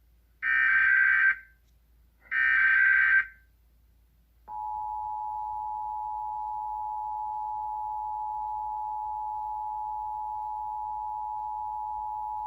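Emergency Alert System SAME header: the last two of three short bursts of digital data tones, each about a second long and a second apart. About four and a half seconds in, the steady two-tone EAS attention signal starts and holds for about eight seconds. Together they announce a Required Monthly Test alert.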